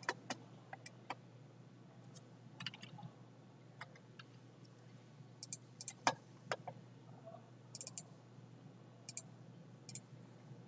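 Faint, irregular clicks and taps from small objects being handled at a computer desk, a dozen or so, the loudest about six seconds in, over a steady low hum.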